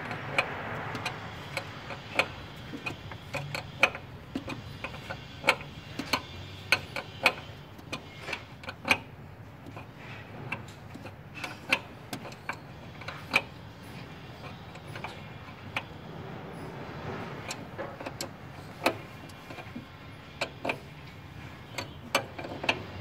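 Irregular sharp metallic clicks and clinks, one or two a second, from an open-end wrench on the brake line fittings of a new brake master cylinder as they are screwed in and tightened.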